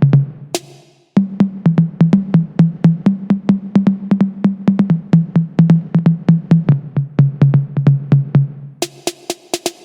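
Millenium MPS-150 electronic drum kit played through its sound module on one of its preset kits: a fast, even run of low drum hits that alternate between two pitches. Near the end this gives way to brighter cymbal hits.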